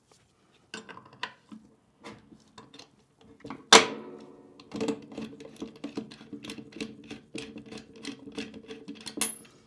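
Metal clicks and rattles as a wrench loosens the large nut and the M-Model spray gun is unscrewed from its aluminium paint-cup assembly. A sharp metal clank with ringing comes a little under four seconds in, then a quick run of ticking with a faint ring as the gun is turned off the cup's threads.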